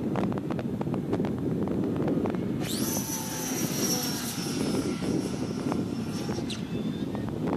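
Electric motor and propeller of a radio-controlled competition model plane whining at full power in flight: the high-pitched whine comes in suddenly about a third of the way in, sags slightly in pitch, and cuts off abruptly about a second before the end, as the motor is switched off. Wind rumbles on the microphone throughout.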